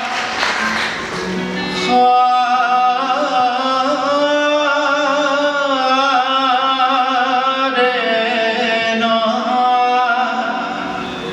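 A man singing into a handheld microphone: long held notes that waver slowly in pitch, with no clear words, over a steady accompanying instrumental note.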